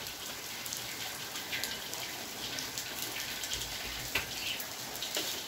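Steady rain falling on a wet brick-paved courtyard and splashing into puddles, with scattered louder drips.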